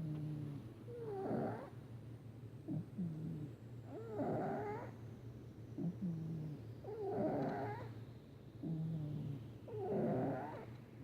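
Domestic cat snoring in its sleep. Four loud, rasping snores come about every three seconds, and each is followed by a shorter, lower breath sound that drops in pitch.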